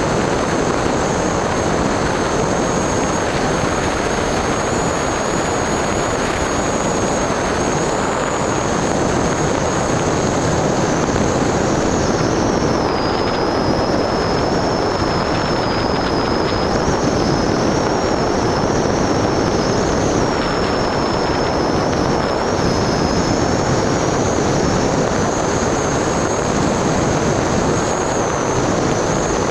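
Onboard recording from an FPV model aircraft in flight: the motor and propeller's high whine over a constant rush of wind across the camera's microphone. The whine dips lower about halfway through and climbs back toward the end as the throttle changes.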